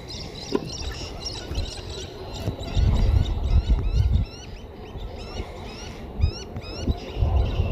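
A flock of birds in the riverbank trees calling, with many short rising chirps overlapping one another. Low rumbling bursts come and go, loudest about three seconds in and again near the end.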